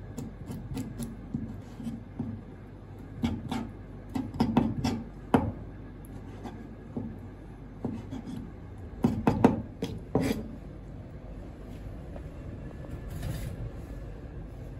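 Kitchen knife tapping and scraping against a cutting board while red clam meat is cut open and sliced: scattered sharp taps in short clusters, loudest about nine to ten seconds in, over a steady low hum.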